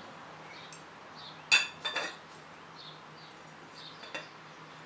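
Glass measuring jug clinking against the rim of a ceramic mug as soil is tipped in: one sharp clink about a second and a half in, two more in quick succession just after, and a lighter one near the end.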